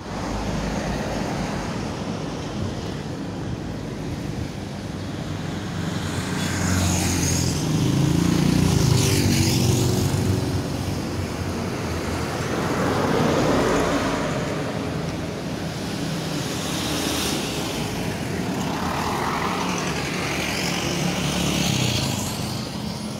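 Heavy road vehicles passing close by on a highway one after another, with engine drone and tyre noise swelling and fading as each goes by. The loudest pass is about eight to ten seconds in.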